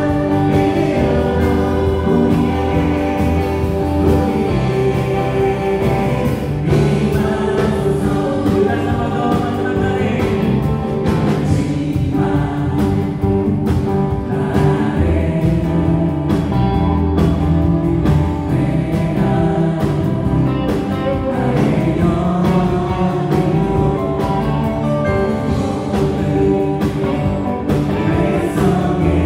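Worship team singing a gospel praise song together, backed by a live band of electric guitar, bass guitar, keyboards and drums.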